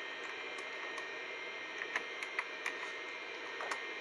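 Computer keyboard keystrokes: about ten sharp clicks in irregular groups as DOS commands are typed and entered. Under them runs the steady hum of the running 286 PC.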